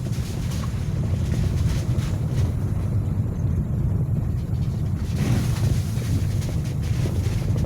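Vehicle driving in the rain: a steady low rumble of road and wind noise buffeting the microphone, with scattered light ticks.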